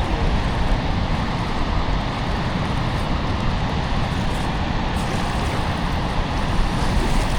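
Steady rushing noise of water pouring over a dam spillway, with wind buffeting the microphone as a ragged low rumble.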